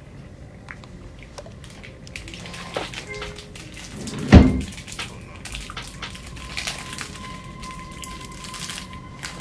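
Horror film soundtrack: a quiet, tense stretch with faint clicks, broken about four seconds in by one sudden loud, deep thud, followed by a faint steady tone.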